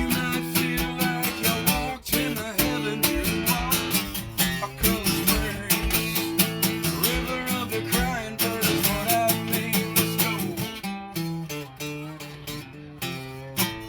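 Acoustic guitar strummed through the song's wordless closing bars, thinning out in the last few seconds before a final strum near the end.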